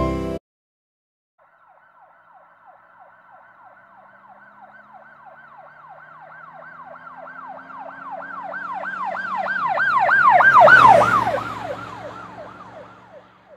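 Emergency vehicle siren in a fast yelp, about four sweeps a second, with an engine hum beneath. It grows louder as the vehicle approaches, is loudest about eleven seconds in, then drops in pitch and fades as it passes.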